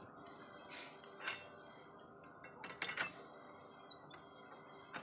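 Light metallic clinks and taps from steel parts of a hand-operated cold-forging scroll bender being worked, a handful of sharp knocks spread out, the loudest near the middle.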